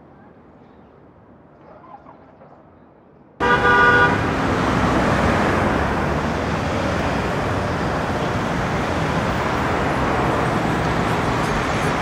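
Quiet rural village ambience, then about three seconds in a sudden switch to busy city-street traffic: a vehicle horn honks for under a second, followed by a loud, steady wash of engines and road noise.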